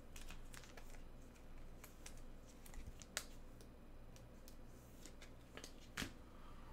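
Faint, scattered light clicks and rustles of trading cards and their packaging being handled, with a sharper tick about three seconds in and another at six seconds.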